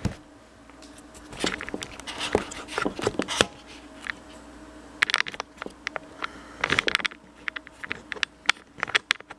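Handling noise from a cardboard shipping box being moved about close to the microphone: scattered scrapes, taps and rustles in irregular clusters, over a faint steady hum.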